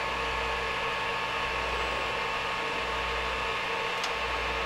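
Creality Ender 5 Pro 3D printer auto-homing: a steady whine from its motors and fans, with a light tick near the end.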